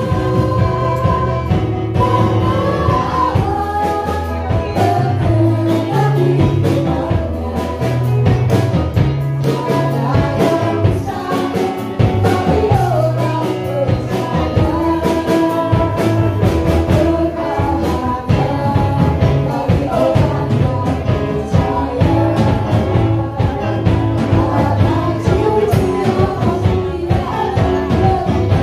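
Live worship music: a group of women singing a song in Indonesian over a band with drums, bass and keyboard, keeping a steady beat.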